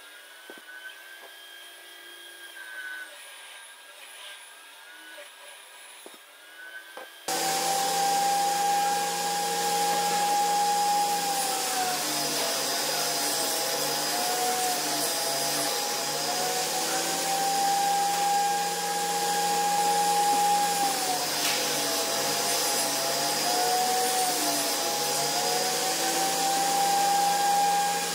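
Benchtop table saw ripping larch boards: the motor's high whine dips in pitch each time the blade bites into the cut, then climbs back as it frees up. It is much quieter for the first several seconds, then loud from about seven seconds in.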